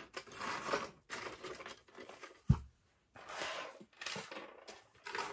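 Rustling and crinkling of wrapping being handled, in several short bursts, with one sharp thump about two and a half seconds in.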